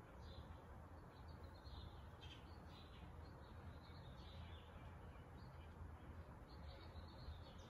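Near silence: a low room hum with faint, scattered high bird chirps.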